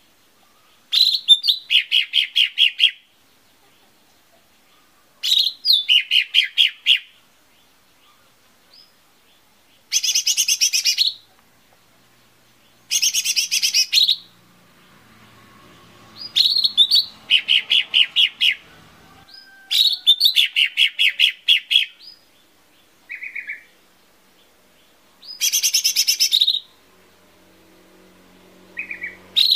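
Cucak ijo mini (lesser green leafbird) singing: short bursts of rapid, evenly repeated sharp notes, each burst lasting one to two seconds, with gaps of a few seconds between them.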